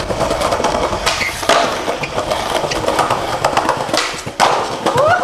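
Skateboard wheels rolling on smooth paving with a steady rough rumble. Just after four seconds the rumble briefly drops out while the board is in the air during a flip trick, then it lands with a sharp clack and rolls on.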